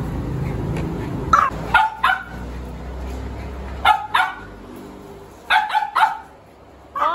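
Small dogs yapping while begging for treats: short, sharp, high barks in quick clusters of two to four, with a falling yelp at the very end.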